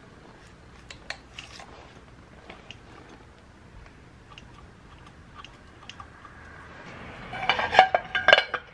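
Light metallic clicks of engine parts and fasteners being handled, then a cluster of louder, ringing metal-on-metal clinks near the end as the pit bike engine's magneto-side cover and bolts are fitted by hand.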